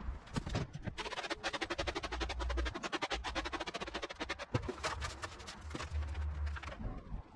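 Garden rake dragging weeds and grit across a concrete path: a fast run of scratchy clicks that thins out after about four seconds.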